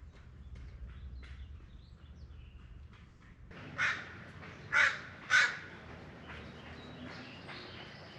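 A crow cawing three times about a second apart, midway through, the loudest sounds here. Light footsteps and scuffs are heard in the first few seconds.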